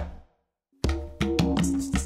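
Afro-Puerto Rican bomba music: a single percussion hit that quickly dies away, a brief silence, then drums and steady pitched tones come in just under a second in.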